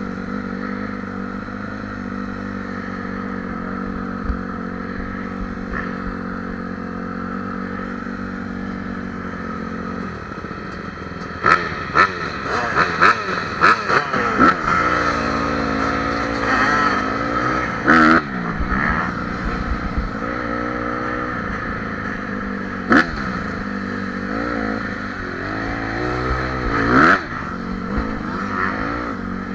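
Dirt bike engine running at a steady speed, then from about ten seconds in revving up and down again and again. A handful of sharp knocks and clatter cut through, the loudest near the middle and near the end.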